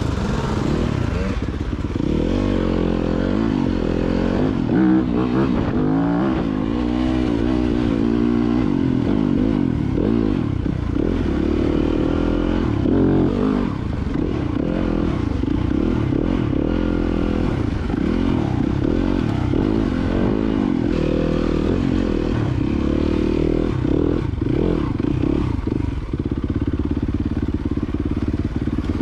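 Dirt bike engine running under way, its revs rising and falling continually as the bike is ridden.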